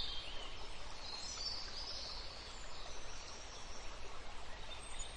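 Outdoor nature ambience: a steady soft hiss with faint bird chirps.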